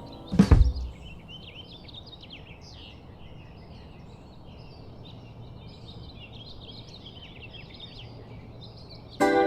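Many small birds chirping and singing over a steady outdoor hiss. A single loud, sudden thump comes about half a second in.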